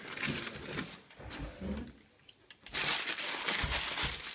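Paper rustling and crinkling as it is handled in a fireplace while a fire is laid, with a louder stretch of noisy hissing rustle for the last second and a half.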